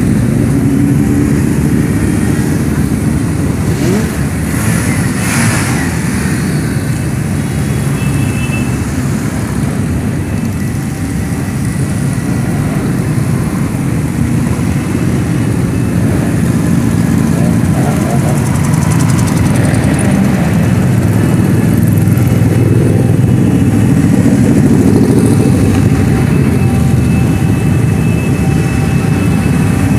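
A parade of many motorcycles, a mix of sport bikes, cruisers and sidecar outfits, riding past in a continuous stream, their engines blending into one steady, loud drone. One louder burst of engine noise comes about five seconds in.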